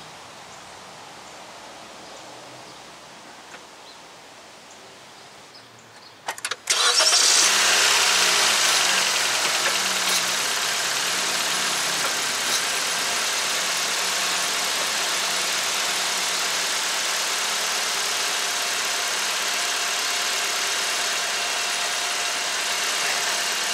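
An engine starts about seven seconds in, a few sharp clicks just before it, then settles into a steady idle.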